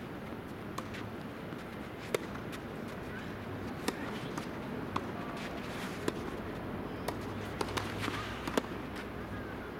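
Tennis rally: a series of sharp pops of a ball struck by rackets and bouncing on the court, spaced roughly half a second to a second apart, over a steady background hum.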